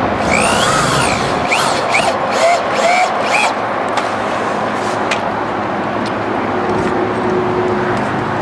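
Power drill driving self-tapping screws into sheet metal: several short bursts in the first few seconds, the motor speeding up and winding down each time. Under it runs a steady rushing noise.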